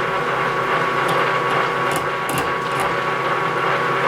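Metal lathe spindle turning at about 265 RPM while a negative-rake carbide insert takes a roughing cut across a welded steel part: a steady mechanical whine with a few faint ticks.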